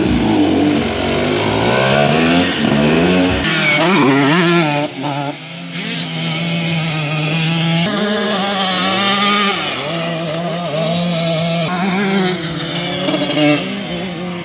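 KTM 125 cc two-stroke motocross bike engine revving, its pitch repeatedly climbing and dropping as it accelerates and shifts.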